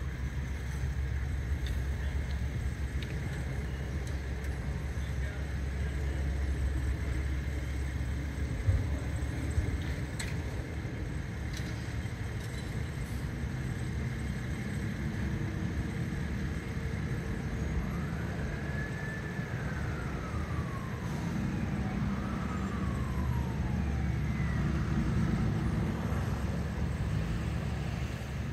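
Distant emergency-vehicle siren sweeping up and then down twice, over a steady low rumble of vehicle engines. A couple of sharp knocks come about a third of the way in.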